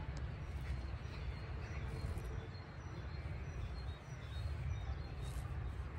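Nylon tent fabric rustling as it is handled and pulled on a guy line, over a steady low rumble, with a few faint bird chirps.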